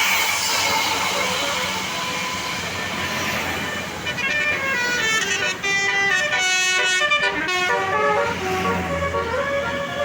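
A tour bus's multi-tone 'telolet' horn playing a stepping tune of several notes, starting about four seconds in, after a few seconds of loud road-vehicle noise.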